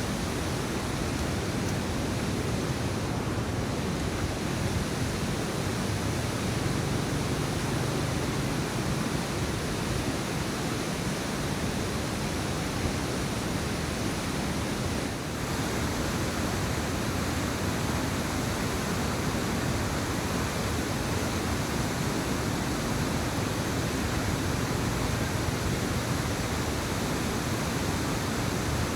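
Steady, unbroken rushing noise that holds an even level throughout.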